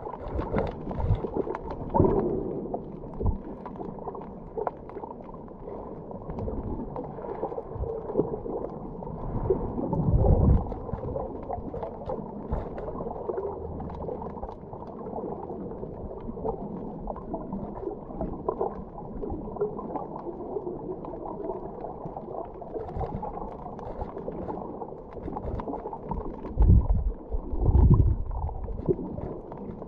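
Underwater ambience heard through a submerged camera: a steady, muffled water rush with gurgling, with a few louder low whooshes about ten seconds in and twice near the end.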